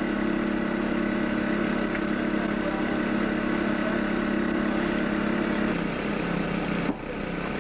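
Small engine of a hydraulic rescue-tool power unit running steadily at one pitch. Its lower tone drops away about six seconds in, and a single sharp click comes about a second later.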